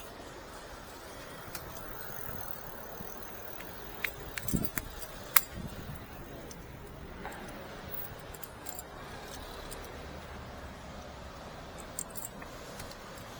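Keys jangling and clicking, with a cluster of sharp clicks about four to five and a half seconds in and a few lighter ticks elsewhere, over steady background hiss.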